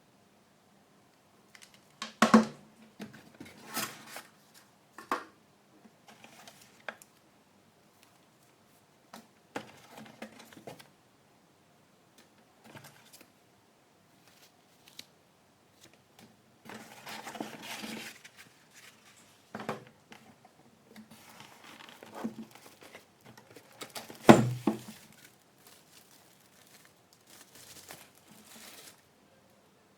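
Laptop packaging being handled and opened: crinkling and rustling of wrapping with scattered knocks of cardboard. The two loudest knocks come about two seconds in and near the end.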